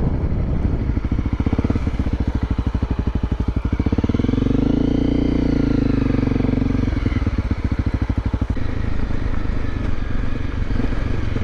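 Honda CRF250L Rally's single-cylinder engine running under way. Its pitch climbs and then falls away once around the middle, as the throttle is opened and then closed.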